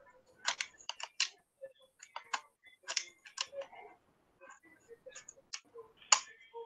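Irregular light clicks and taps of computer keyboard and mouse use, picked up by a video-call microphone, about a dozen in all, with the sharpest a little after six seconds in.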